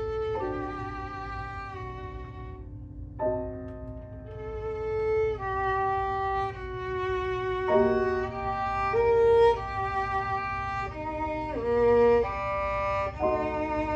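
Violin playing a melody of held, singing notes with vibrato, changing pitch every second or so, with a brief break about three seconds in.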